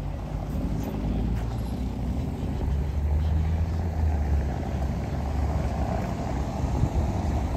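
City street traffic: cars driving past, a steady low rumble.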